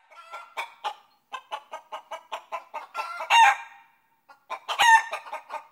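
Chicken clucking: a run of short, quick clucks, then two louder, longer calls about three and five seconds in.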